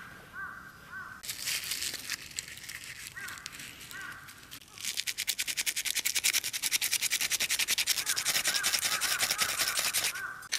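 Fast, continuous scraping of a striker along a magnesium fire-starter rod, trying to throw sparks into a wood stove without it catching. It runs strongly from about halfway through, after a shorter burst of scraping early on. A crow caws several times in the background.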